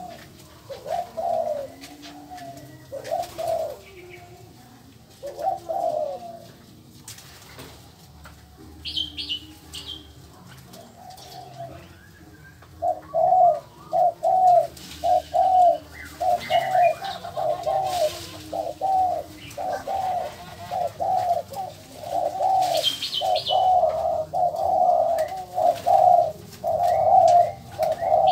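Doves cooing, a few separate phrases at first and then a steady run of quick repeated coos from about halfway through. Short high chirps from a smaller bird come twice, about a third of the way in and again near the end.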